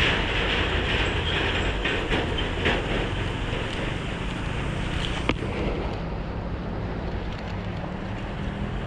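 Fishing reel being wound to retrieve a cast lure, a fast rattling whir, under wind buffeting the microphone, with a sharp click about five seconds in.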